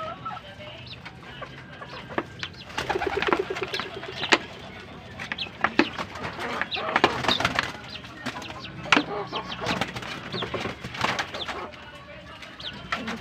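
A group of birds calling at once, many short, sharp calls overlapping, with busier clusters every couple of seconds.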